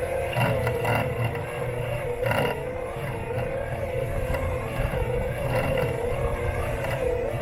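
Robot lawn mower running across the lawn, heard from a camera taped to its body: a steady motor whine that wavers slightly in pitch over a low rumble, with a few brief scrapes or knocks in the first three seconds.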